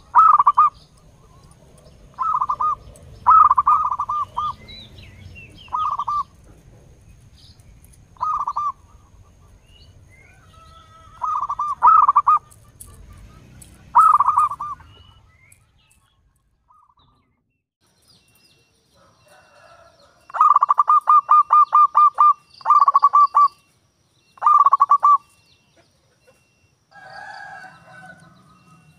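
Zebra dove (perkutut) cooing in short clusters of quick staccato notes. About two-thirds of the way in it gives a longer rapid run of about a dozen evenly spaced notes, followed by two shorter runs.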